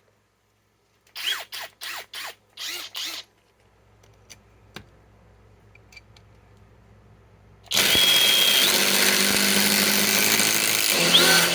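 Flex FX1431A cordless compact impact wrench: a handful of short trigger bursts about a second in, then a few seconds of continuous running near the end, as the fasteners strip out.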